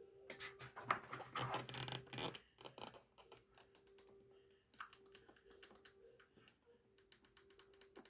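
Runs of rapid, light clicks and taps: a dense run in the first two and a half seconds and another near the end, with scattered clicks between, over a faint steady hum.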